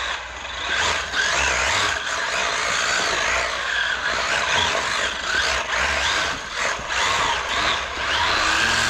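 A 1/16-scale 4WD electric RC drift car running on carpet, its motor and gears whining. The pitch rises and falls repeatedly as the throttle is worked.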